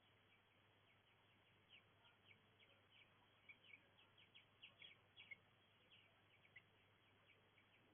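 Faint, quick series of short bird chirps and tweets over a low steady hiss, busiest in the middle of the stretch.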